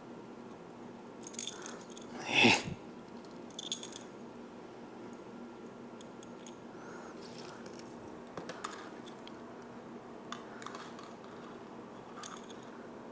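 Small parts being handled: light clicks and rattles of a turn signal, its wire and mounting bracket being fitted together. One louder, brief knock-and-rustle comes about two and a half seconds in, a quick cluster of clicks just before four seconds, and a few faint ticks after that.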